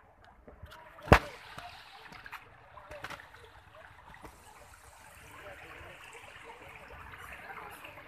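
Shallow man-made stream trickling over rocks, a steady babble of running water that grows a little louder toward the end. One sharp knock about a second in is the loudest thing.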